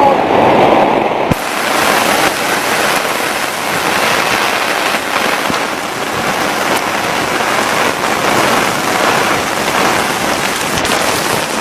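Heavy rain pouring down as a dense, steady hiss, which turns sharply brighter about a second in.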